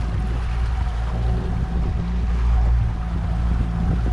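Outboard motor running steadily in gear, pushing a small aluminium boat along at trolling speed, with a steady low hum and the rush of water and wind.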